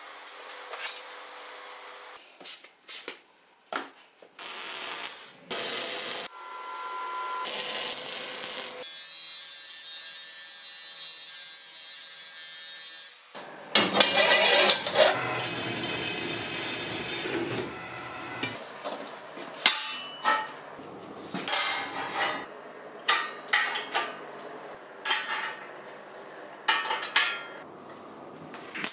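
Metalworking sounds: steel bar clanking and scraping on a steel welding table, a horizontal metal-cutting band saw running steadily through steel flat bar, then a run of sharp metal knocks and clanks in the last third.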